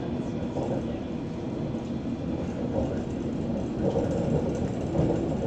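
Steady low rumble inside the carriage of a London Underground S7 stock train on the Hammersmith & City line, the running noise of the train on the track.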